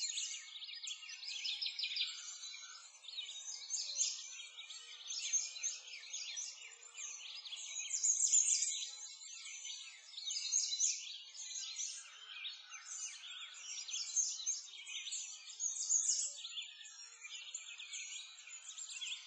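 Many birds singing at once, a dense chorus of overlapping high chirps and trills that swells and fades every second or two.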